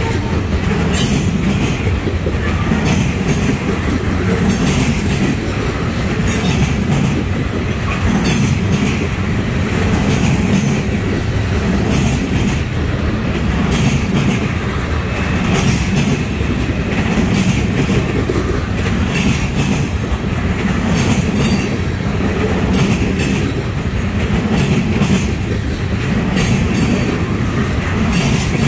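Freight cars of a garbage train, open-top waste containers on flatcars, rolling steadily past close by: a continuous rumble of steel wheels on rail, broken by repeated clicks and knocks as the wheelsets cross rail joints.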